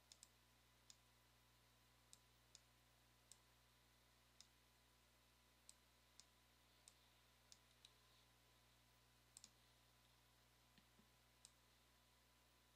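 Computer mouse clicking: sharp, irregular single and double clicks, roughly one a second, over faint room hiss.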